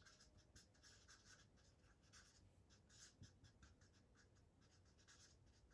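Faint strokes of a marker pen writing on flip-chart paper, quick and irregular.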